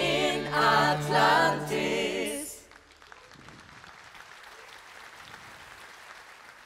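Stage-show singers holding the final chord of a song over the band, cutting off about two and a half seconds in; quieter audience applause follows.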